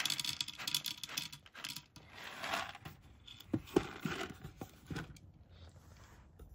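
Rustling and scraping handling noises, then a few soft knocks about three and a half seconds in, growing quieter toward the end.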